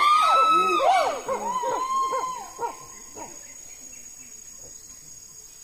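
A group of chimpanzees pant-hooting, several loud voices overlapping in rising and falling calls that die away about three seconds in.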